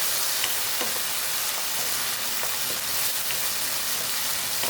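Small chicken pieces frying in a pan, a steady sizzling hiss with a few faint ticks. The chicken is cooked through and browning.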